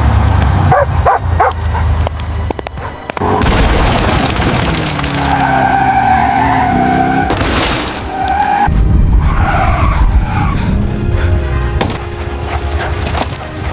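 Dramatic film score under a car skidding, its tyres screeching through the middle for about five seconds, with a dog barking.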